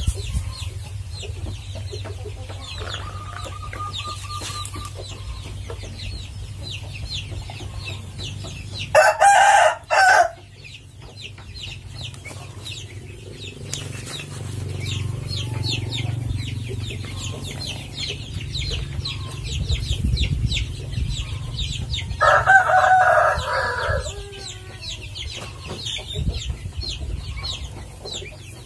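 Chickens clucking, with two loud rooster calls, each just over a second long, about nine seconds in and again about twenty-two seconds in.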